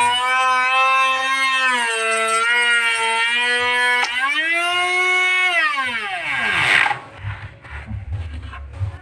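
Woodworking machine's electric motor whining at high speed, its pitch dipping slightly as the load changes. About four seconds in it rises briefly, then winds down in a long falling whine and stops near the seven-second mark, leaving a low rumble and a few knocks.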